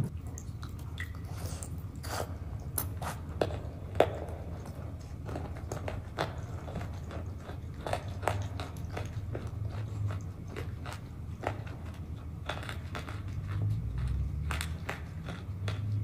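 Close-up eating sounds as a thick, creamy food is taken from a spoon and chewed, with sharp crunches and clicks scattered irregularly. The loudest comes about four seconds in.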